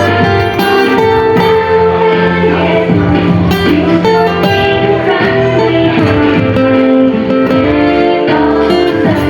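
Music led by guitar, plucked and strummed over a bass line, with sharp percussive strikes throughout.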